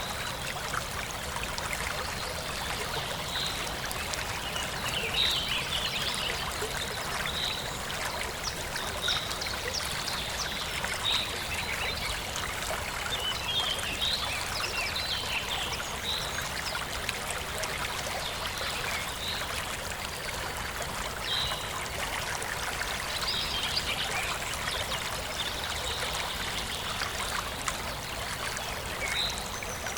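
Small forest stream trickling and splashing steadily, with birds chirping, short high calls every second or two.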